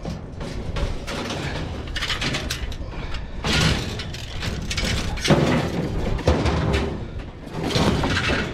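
Scrap items being handled and shifted: repeated knocks, clatter and scraping as things are pulled out and moved.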